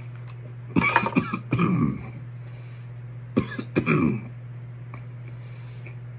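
A man coughing and clearing his throat in two bouts, one about a second in and another just past the middle, each starting with a sharp cough and trailing into a rough throaty rasp. He is eating a chocolate primotalli superhot pepper, and the coughing is his throat reacting to the burn. A steady low hum runs underneath.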